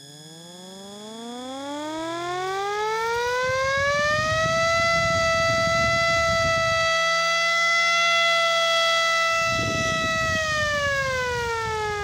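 MS-190 electric motor siren spinning up: its pitch rises for about four seconds into a steady wail, holds for about six seconds, then falls as the siren winds down near the end.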